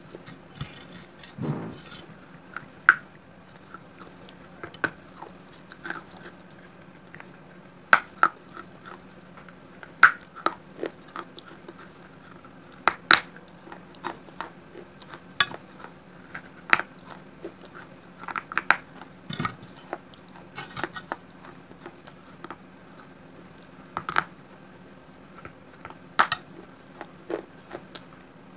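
Close-up crunching and chewing as pieces of a baked clay pot (a gulak, a clay piggy bank) coated in red clay paste are bitten and chewed, with sharp crunches at an irregular pace every second or two.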